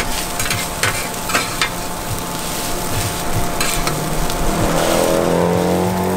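Food frying and sizzling in a pan, stirred with a metal utensil that clicks against it several times. About four and a half seconds in, a passing motor vehicle's engine comes up over it, rising in pitch.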